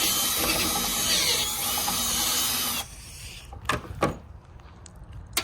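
Power drill running steadily, opening up a rivet-nut hole that was too tight; it stops a little under three seconds in, followed by a few sharp clicks.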